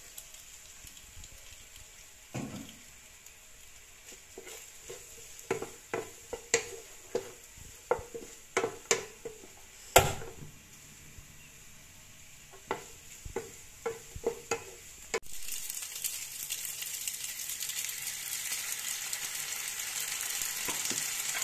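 A wooden spatula stirring and tossing penne in a nonstick frying pan, a run of knocks and scrapes against the pan with the loudest about halfway through. About two-thirds of the way in, tomato sauce goes into the hot pan and a steady sizzle starts suddenly.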